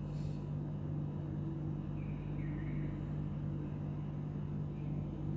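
Steady low machine hum with a few faint, short high chirps about two seconds in and near the end.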